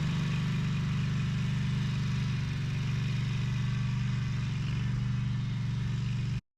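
Exmark Laser Z zero-turn mower's engine running steadily, cutting off abruptly near the end.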